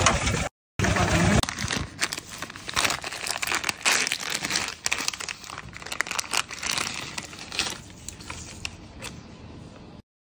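Wrapper crinkling and tearing as it is peeled open by hand, a dense run of quick rustles that thin out and get quieter towards the end.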